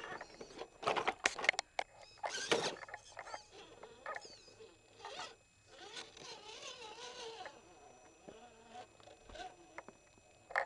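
Axial AX10 radio-controlled rock crawler's tyres scraping and knocking on rock. A few sharp scrapes come in the first three seconds, followed by quieter scattered clicks.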